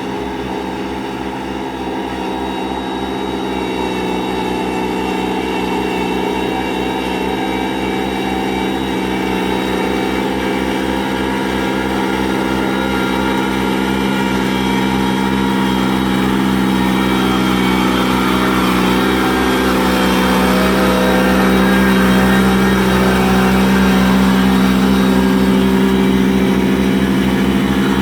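Rice transplanter's engine running steadily, growing gradually louder.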